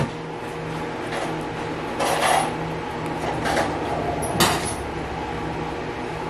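Kitchen handling noises over a steady low hum: a short rustling burst about two seconds in, a softer one a second later, and a sharp click a little after four seconds.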